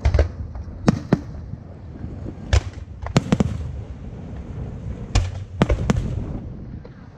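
Aerial fireworks bursting: clusters of sharp bangs, about nine in all, with a low rumbling echo between them that fades near the end.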